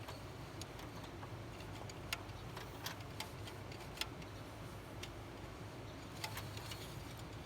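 A few faint, scattered clicks and taps, about five spread over several seconds, over a low steady hum.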